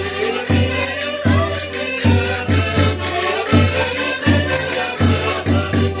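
Several diatonic button accordions (concertinas) playing a Portuguese folk dance tune together, the bass buttons giving a steady pulse about every three-quarters of a second, with people singing along.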